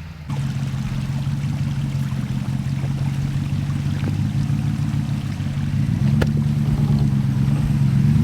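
Off-road vehicle's engine pulling steadily under load on a snowy trail, revving up a little about six seconds in, with a few sharp clicks over it.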